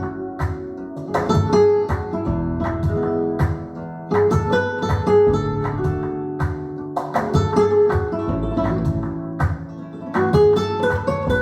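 Recorded music with quick plucked acoustic guitar in a flamenco-like style over a full low end, played back loud through a sound system under test.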